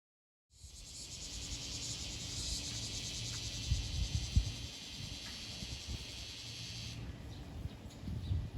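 Insects buzzing in a dense, fast-pulsing high chorus that drops away about seven seconds in, over a low rumble with a few knocks.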